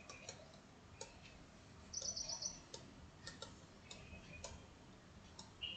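Faint, scattered ticks of a stylus tapping a tablet screen during handwriting, with a short run of quick high chirps about two seconds in.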